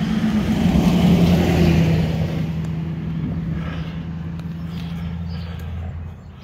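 A motor vehicle's engine droning steadily, growing louder about a second in and then slowly fading, as a vehicle going past would.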